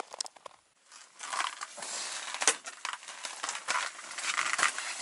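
Irregular crunching and rustling of people moving about on snow-covered ice, with scattered small knocks.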